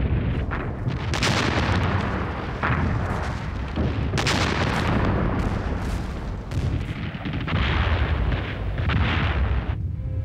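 Battle sound effects: a series of explosions and artillery blasts, several of them a second or two apart, over a continuous low rumble.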